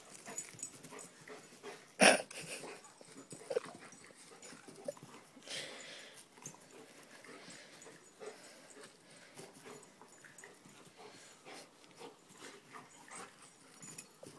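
A dog making short, scattered sounds with its mouth and breath as it chases and snaps at soap bubbles. One loud, sharp sound comes about two seconds in.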